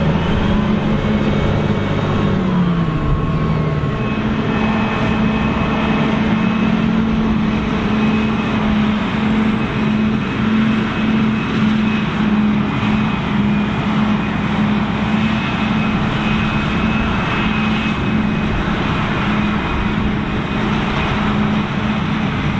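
Tractor engine running steadily at high revs, with an even pulsing drone; its pitch drops once about two to three seconds in, then holds.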